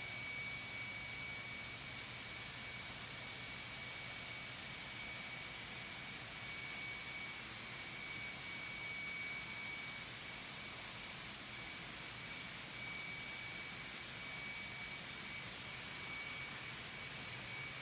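Steady engine-room noise from a ship's running six-cylinder two-stroke main diesel engine and its turbochargers: an even din with a constant high whine.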